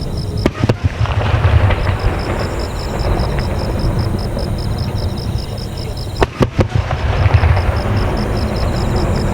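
Aerial fireworks shells bursting: sharp cracks about half a second in and a quick cluster of them around six seconds in, each followed by long, rolling low rumbling booms.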